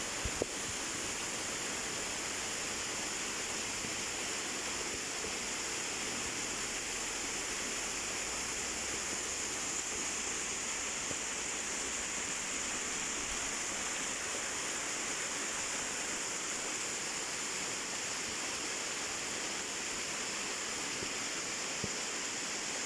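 Waterfall rushing steadily, a constant even roar of falling water, with a couple of faint clicks about half a second in.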